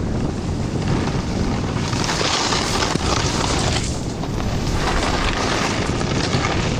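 Wind rushing over the microphone and a snowboard sliding through deep powder snow, a loud steady hiss and rumble that eases briefly about four seconds in.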